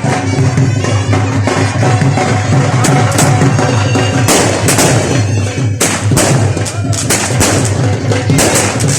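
Band music with a drum and a droning wind instrument, and about four seconds in a rapid string of firecracker bangs starts over it, several a second.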